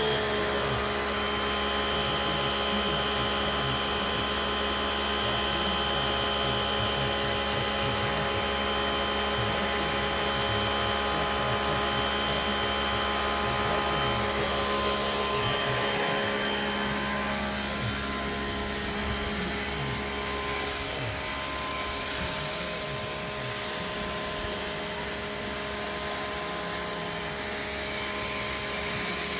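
A small motor running steadily with a whine, like a vacuum cleaner or power tool; about halfway through it eases a little lower and quieter.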